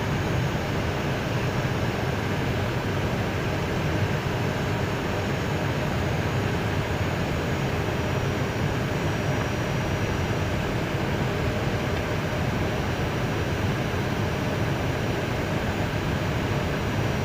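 Steady rumble and hiss inside an Airbus A320 cockpit as the airliner taxis slowly onto its parking stand, its engines at idle.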